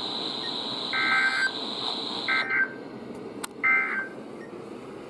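Weather radio sending three short bursts of warbling EAS/SAME digital data tones about a second apart: the end-of-message code that closes the severe thunderstorm warning broadcast. Under them a faint steady high tone cuts off about halfway through.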